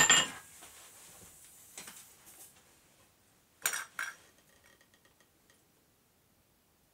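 A hammer blow on hot steel ringing off the anvil right at the start, then faint small clicks and two quick, sharp metallic clinks close together about four seconds in, as the glowing railroad-spike axe head is handled on the anvil.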